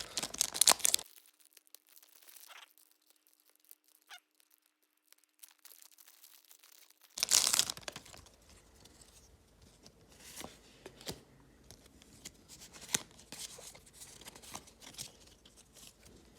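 Foil booster pack wrapper crinkling and tearing open: a loud burst for about the first second, a quiet stretch, then another loud crinkle about seven seconds in, followed by faint rustles and clicks.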